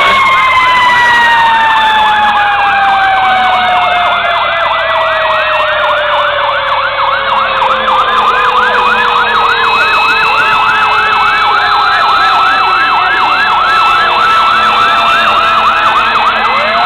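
Several fire truck sirens sounding together: one long wail falling slowly in pitch, overlaid about two seconds in by a fast yelp cycling about four times a second, with another wail starting to rise near the end.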